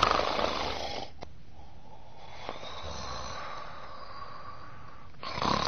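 Snoring: a loud rasping snore in the first second, a long softer breathy stretch, and another loud snore starting near the end.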